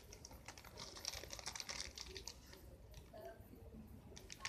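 Faint, irregular light clicks and rustles of a squishy toy being handled and squeezed in the hands.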